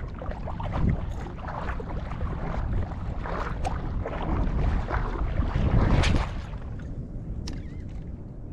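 Wind gusting on the microphone over water lapping around a wading angler, an uneven rushing noise that swells about three seconds in and again about six seconds in.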